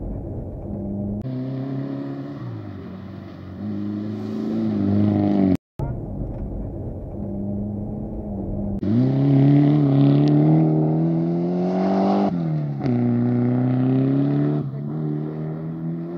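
Mitsubishi Lancer Evo IV's turbocharged four-cylinder engine, heard from inside the cabin, revving hard under acceleration. Its pitch climbs and falls sharply at each gear change, with one long climb about nine seconds in. The sound cuts out for a moment about halfway through.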